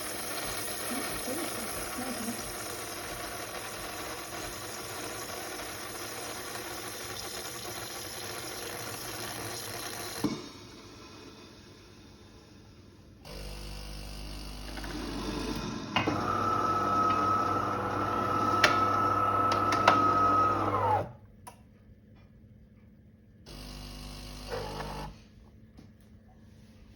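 De'Longhi Dinamica bean-to-cup coffee machine running through its cappuccino cycle. A steady hissing, frothing run for about ten seconds ends with a click. Then come motor and pump hums, including a steady whine for about five seconds that stops sharply, and a short hum near the end.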